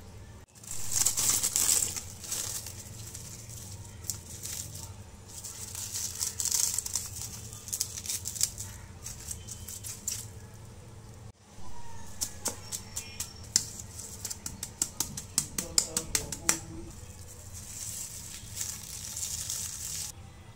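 Plastic cling film crinkling and rustling in bursts as hands handle and press it flat over raw chicken on a cutting board, with a run of quick sharp crackles about two-thirds of the way through.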